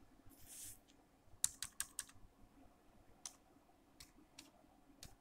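Faint computer keyboard keystrokes as text is typed in: a quick run of several keys about a second and a half in, then single keys spaced out through the rest.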